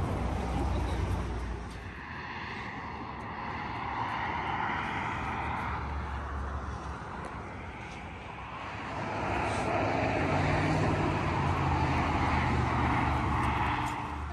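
Road traffic noise from vehicles on a highway: a steady rushing with a low rumble that swells louder from about the middle to near the end, as a vehicle passes.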